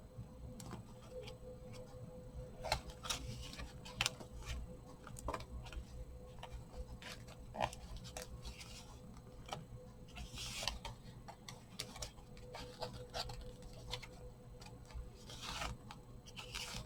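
Scattered light clicks and taps with a few short paper rustles as the thick pages of a handmade journal are handled and turned, over a faint steady hum.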